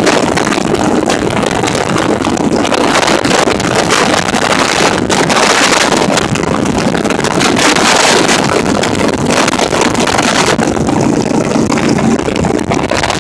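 Cruiser motorcycle riding at road speed: heavy wind noise buffeting the microphone, with the motorcycle's engine running underneath.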